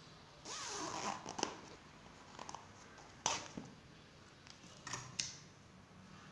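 Fabric rustling as the pouch is handled and turned under the presser foot of the stopped sewing machine. A sharp click comes about three seconds in, and a few softer clicks follow near the end.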